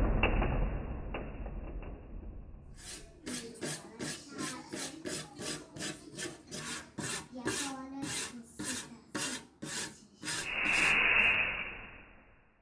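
Small wire brush scrubbing rust off a steel hand saw blade, in quick back-and-forth scraping strokes at about three a second. The scrubbing starts about three seconds in and stops about ten seconds in.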